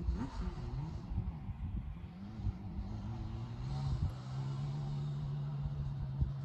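Yamaha Banshee ATV's twin-cylinder two-stroke engine revving, its pitch rising and falling repeatedly, then holding a steady pitch from a little past halfway.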